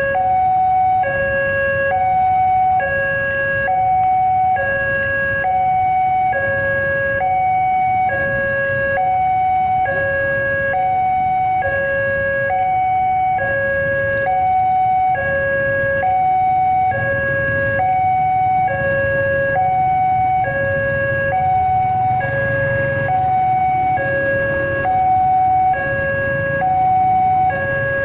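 Railway level-crossing warning alarm sounding an electronic two-tone signal, a high and a low note alternating evenly about once a second, warning that a train is approaching. Motorcycle engines idle underneath.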